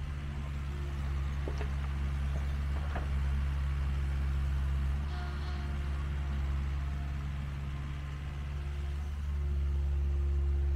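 Mini excavator's diesel engine running steadily while it grades and backfills, with a couple of faint knocks about one and a half and three seconds in. The engine note eases slightly for a few seconds in the middle.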